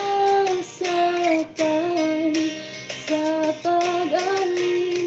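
A woman singing a slow ballad into a microphone, holding long notes between short breaths.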